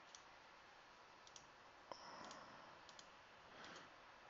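Several faint, sharp computer mouse clicks spaced irregularly over near-silent room tone, as dropdown options are selected on screen.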